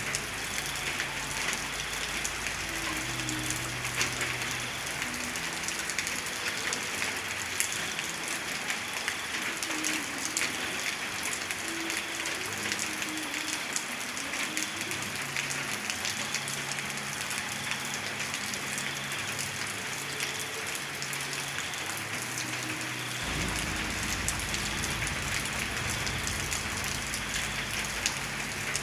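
Steady rain falling, a dense patter of individual drops over an even hiss. A low rumble underneath drops away about six seconds in and comes back about twenty-three seconds in.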